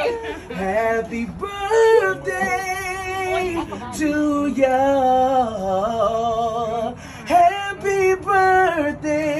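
A song: a voice sings long, held notes with a wavering vibrato over quiet accompaniment.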